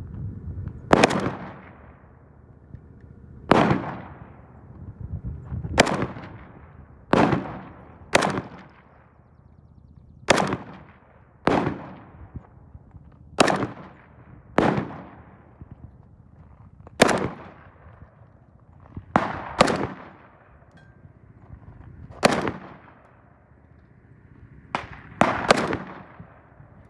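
Polish under-folder AKM rifle in 7.62×39 mm, fitted with a replica AK-74 muzzle brake, fired shot by shot, mostly one to two seconds apart. Each report is a sharp crack with a short fading echo, and a few shots come in quicker pairs.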